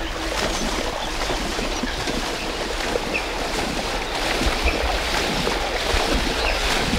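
Hippos wading through ankle-deep floodwater: a steady sloshing and splashing of water around their legs.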